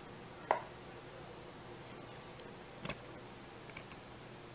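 Three brief sharp clicks over a steady low hiss, the first about half a second in and the loudest, the others near three and four seconds: handling noise of the camera as it is moved.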